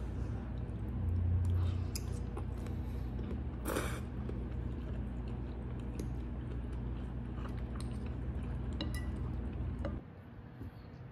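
Close-up eating sounds of a person eating pasta: chewing, with scattered light clicks of a metal fork in the bowl and one short louder noisy burst near four seconds, over a steady low hum that drops away near the end.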